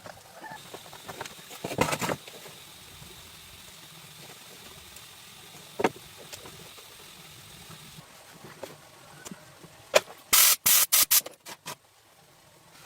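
Scattered clicks and knocks of hand work, then a quick run of about five short hissing sprays near the end.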